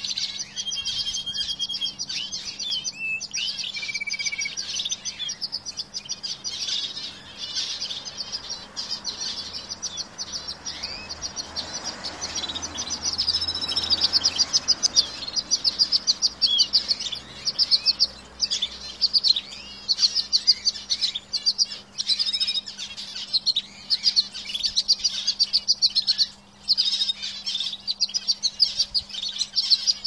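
Canaries singing in an aviary: continuous rapid trills and rolls from several birds overlapping, with a few held whistled notes near the start. The song grows louder about halfway through.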